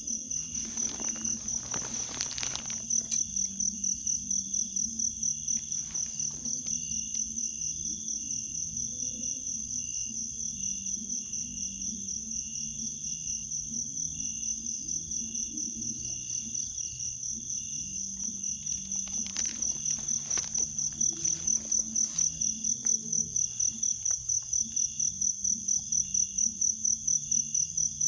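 Crickets or similar night insects trilling steadily in a high, rapidly pulsing chorus. A low hum runs beneath, and a few brief rustling noises come about two seconds in and again near twenty seconds.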